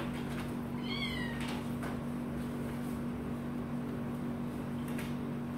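A kitten gives one short, high meow about a second in, over a steady low hum.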